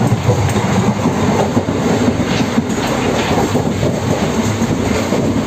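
Indian Railways passenger train running, heard from inside the coach: a steady noise from the wheels and carriage.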